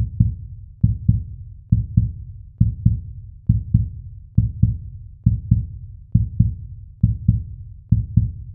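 Heartbeat sound effect: deep, low double thumps, lub-dub, repeating evenly a little under once a second.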